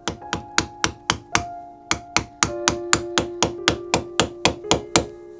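Hammer driving an old, rusty chisel into the axe eye to break out the stub of the old handle: a quick series of sharp metal-on-metal blows, about four a second, with a short pause about a second and a half in, ending about five seconds in.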